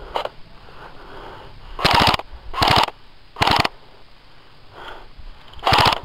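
G&G MP5 airsoft electric gun firing four short full-auto bursts, each a rapid rattle of shots lasting about a third of a second: three in quick succession, then one more near the end.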